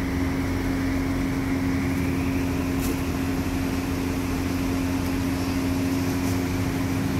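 Steady mechanical hum of a fan or electric motor, with one constant tone over a low drone. Two faint light ticks come about 3 and 6 seconds in.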